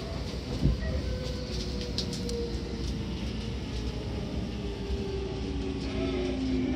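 Seibu 6000 series electric train running, heard from inside the car: faint whining tones from its Hitachi GTO inverter and traction motors drift in pitch over a steady wheel-and-rail rumble. There is a single thud about half a second in.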